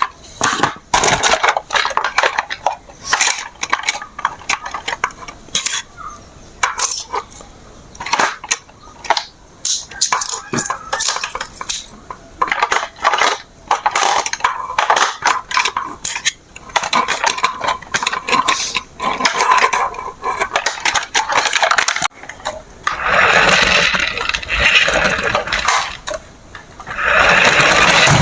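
Hard plastic toy parts clicking and clattering as they are handled. Near the end a small toy motor whirs steadily, twice with a short break.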